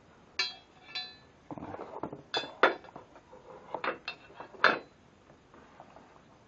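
Small metal hardware, washers and screws, clinking as they are handled: two ringing clinks near the start, then a stretch of rustling handling with several sharper clinks, going quiet near the end.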